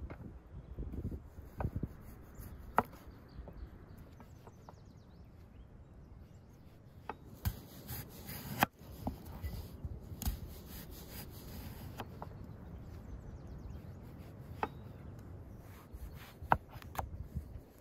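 Chef's knife slicing raw potatoes and then an aubergine on a wooden cutting board: irregular sharp knocks of the blade against the board.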